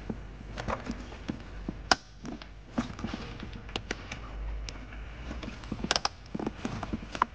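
Irregular light clicks, taps and knocks of metal hand tools and engine parts being handled, over a low steady hum.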